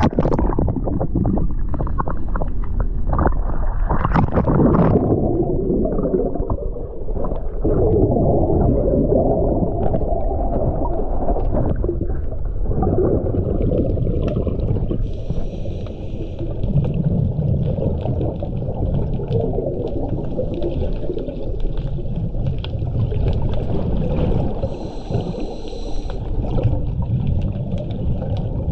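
Scuba diver's breathing heard underwater: bubbles gurgling and rumbling from the regulator's exhaust, with two hissing breaths drawn through the regulator. It opens with splashing and bubbling as the camera goes under the surface.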